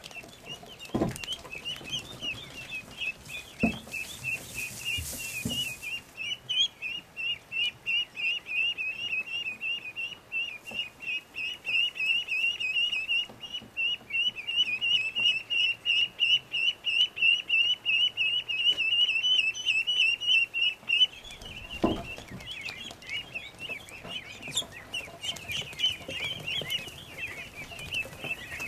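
A brood of Rouen ducklings peeping: a fast, unbroken chorus of high-pitched peeps, with a few low thumps near the start and again about two thirds of the way in.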